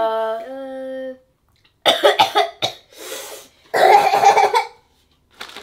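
Children coughing in two short, rough bouts, the second about four seconds in the louder, after eating spicy Takis chips. A drawn-out vocal sound comes before them.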